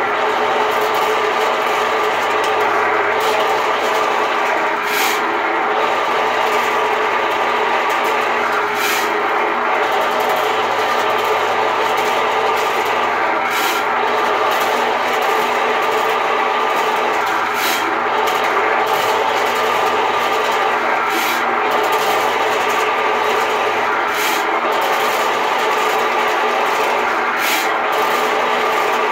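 RIDGID K-60 sectional sewer machine running steadily, its electric motor spinning 7/8-inch cable down a clogged areaway drain, with occasional sharp clicks.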